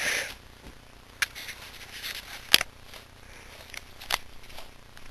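Rustling of bedding fabric and handling noise, with three sharp clicks about a second and a half apart, the middle one the loudest.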